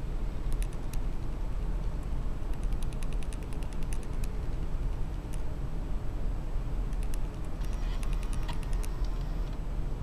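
Scattered light clicks and ticks over a steady low hum, while a MacBook Pro powers on after a RAM swap. No loud repeating beeps sound, the sign that the memory fault is gone.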